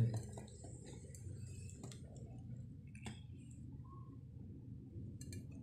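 Faint, steady low background rumble with a few light clicks, one about two seconds in, one about three seconds in and a small cluster near the end.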